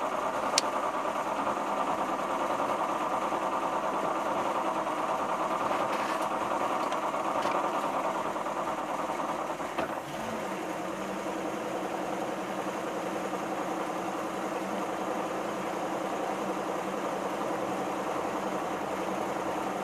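MerCruiser 350 cubic-inch V8 boat engine running steadily at low speed, a little quieter from about halfway through.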